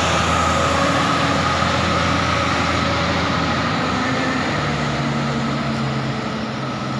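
Diesel engine of a large intercity bus running as the bus pulls away, slowly fading. The engine note changes about four and a half seconds in.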